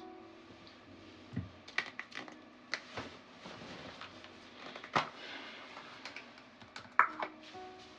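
Scattered clicks, taps and rustling from hands sectioning and twisting hair and handling styling items, with the sharpest clicks about five and seven seconds in.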